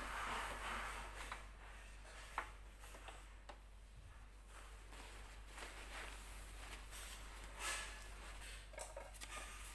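Faint scattered clicks and light handling sounds over a low steady hum, with the sewing machine not running.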